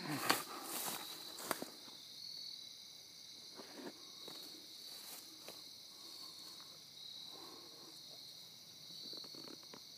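Steady, high-pitched chirring of an insect chorus. A few knocks and rustles come in the first second and a half.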